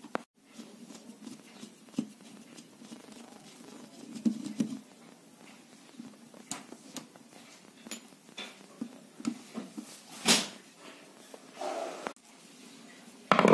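Small clicks, scrapes and handling knocks of a screwdriver undoing the terminal screws on an angle grinder's switch as the wire leads are worked free, with a louder knock about ten seconds in.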